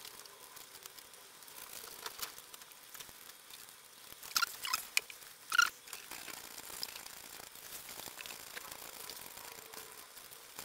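Faint small clicks, ticks and scratches from handling fine tools and thin wires at a workbench during soldering, with a cluster of sharper ticks about four to six seconds in.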